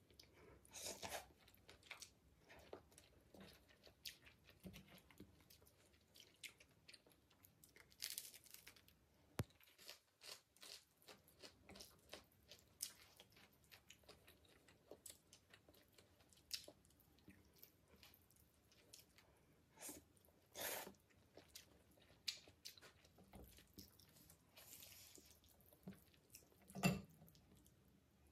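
Mukbang-style eating of black bean ramen: noodles slurped in several short hissy bursts between chewing and crunchy bites, with many small clicks. A sharp click near the end is the loudest sound.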